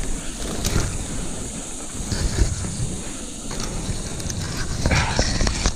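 Grass and weed stems brushing and rustling as someone pushes through them on foot, in scratchy bursts that are loudest near the end, over a low rumble on the microphone.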